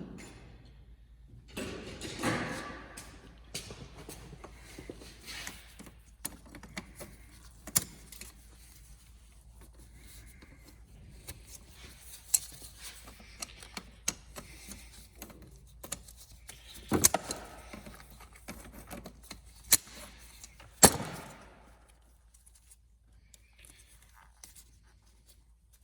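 Metal hand tools and parts clinking and knocking, with rustling between, while working on a car's fuse and battery cables. A few louder sharp clacks come in the second half.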